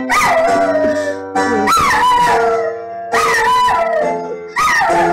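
A small long-haired dog howling along to an upright piano: four howls about a second and a half apart, each rising sharply then sliding down, over sustained piano notes.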